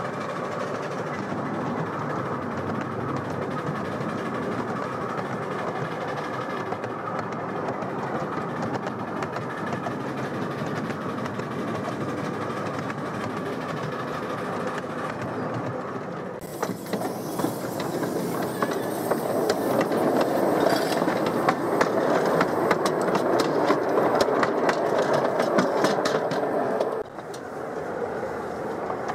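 7¼-inch gauge miniature steam train running on its track, heard from the locomotive: a steady rolling rumble, turning a little past halfway into a louder run with rapid clicking of the wheels over the rail joints. Near the end, quieter sound of the passenger carriages rolling past.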